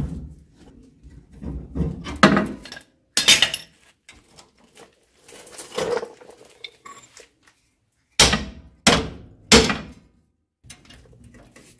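Scattered metal clanks of tools on the truck's leaf spring assembly, then three sharp hammer blows on the leaf spring pack, about two-thirds of the way through.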